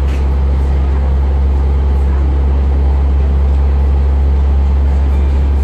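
Class 142 Pacer diesel railcar heard from inside the carriage on the move: its underfloor Cummins diesel engine and running gear give a loud, steady, deep drone, with rail running noise and a few faint rattles over it.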